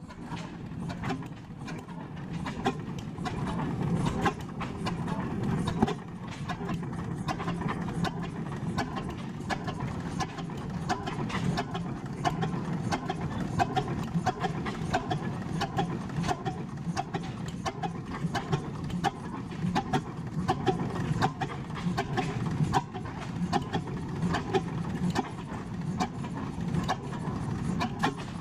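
Large old Samson vertical single-cylinder stationary gas engine running, a rapid, even clicking over a steady low hum.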